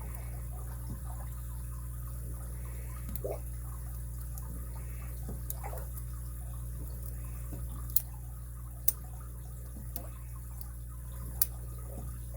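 Lock pick and tension wrench working the pins of a brass MIWA padlock: faint scraping and small ticks in the keyway, with three sharp clicks in the second half, over a steady low hum.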